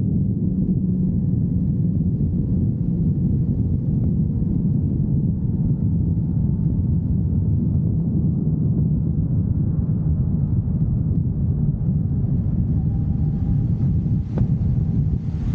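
Motorcycle engine running at a steady cruise, heard as a continuous low drone mixed with wind rushing over the microphone. There are a couple of brief clicks near the end.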